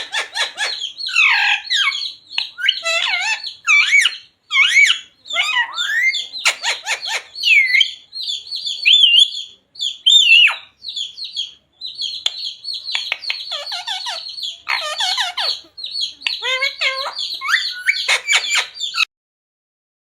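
Pet parrot chattering in a rapid run of squawks, chirps and whistled glides, then cutting off suddenly near the end.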